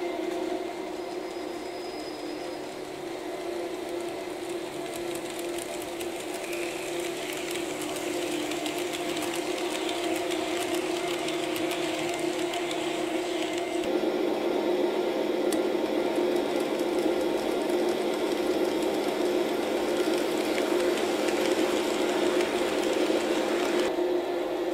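HO-scale model train, a Tomix EF64 1000 electric locomotive hauling 115-series cars, running on the track: a steady mechanical hum from the motors with a fine rattle of wheels over rail joints and crossings. It gets louder about halfway through.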